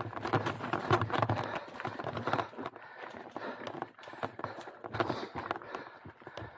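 Hardtail mountain bike clattering down a rocky trail: tyres knocking over rocks and roots, with the chain and frame rattling in a dense, irregular run of knocks. It is loudest in the first couple of seconds and again about five seconds in.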